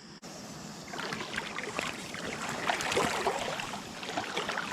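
Creek water splashing and sloshing in an uneven run of small splashes that gets louder about a second in.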